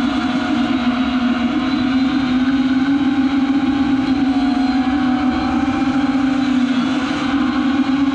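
FPV racing quadcopter's brushless motors and propellers whining steadily at high speed, recorded on the drone itself, with wind rush underneath. The pitch holds level and dips briefly about seven seconds in.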